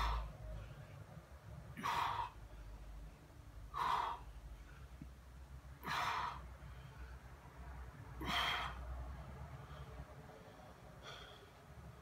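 A man breathing out hard with each push-up rep, a short, forceful breath about every two seconds, the last one fainter.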